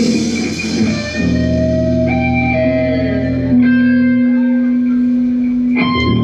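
Live progressive-metal band: electric guitar and keyboards holding long, sustained notes, the chord changing every second or so, with no drums heard.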